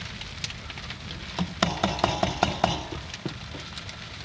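Rain pattering steadily on a small sailboat's cabin, with a quick run of about seven sharp taps or knocks in the middle and one more shortly after.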